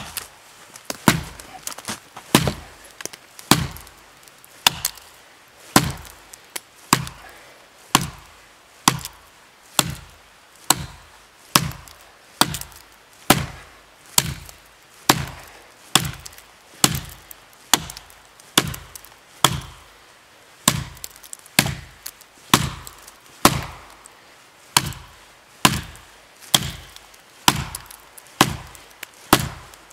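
Gränsfors Bruks Small Forest Axe chopping into the trunk of a dead standing tree: a steady run of sharp blows, about one a second.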